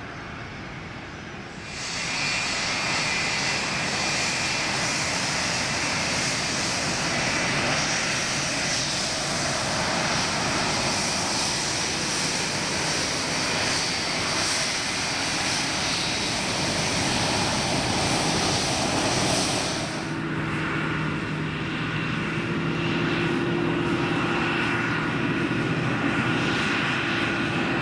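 Antonov An-124's four D-18T turbofans running at high power: a loud jet roar with a steady whine. It jumps sharply louder about two seconds in. Near twenty seconds in the high hiss falls away and a lower steady hum takes over.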